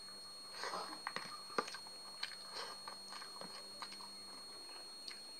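Close-up open-mouthed chewing and lip-smacking of a mouthful of rice and fried tempeh, a quick run of wet, crunchy clicks that thins out over the last couple of seconds.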